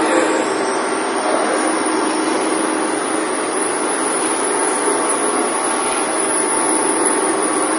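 Machine-shop machinery running: a loud, steady mechanical noise with a faint hum in it.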